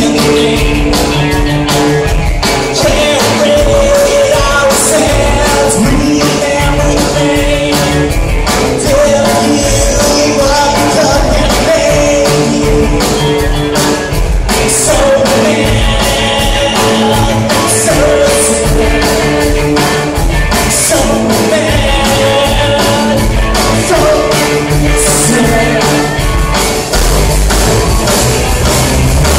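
Live punk rock band playing loud: electric guitars and a drum kit pounding steadily, with a singer's voice over them.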